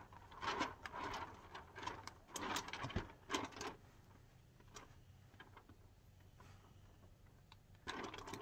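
Faint rubbing of a palm sliding over wet window-tint film on the back glass as it is smoothed down: about five short strokes in the first half, a quiet stretch, then a couple more near the end.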